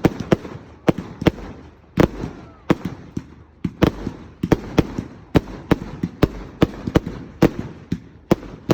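Fireworks going off: a rapid, irregular string of sharp bangs, about two or three a second, each followed by a short rumble.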